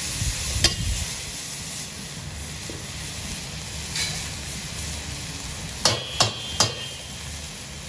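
Mixed vegetables sizzling in a hot stainless steel wok as they are stir-fried, with a metal ladle scraping and knocking against the wok; three quick knocks come close together about six seconds in.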